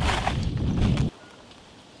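Rustling and light clatter of rambutans being handled, over a heavy low rumble of wind on the microphone. About a second in it cuts off abruptly to a quiet outdoor background.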